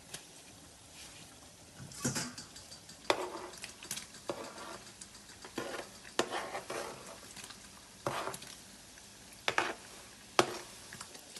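Chinchin dough pieces frying in a pot of hot oil, the oil sizzling while a spoon stirs them, knocking and scraping against the pot at irregular intervals.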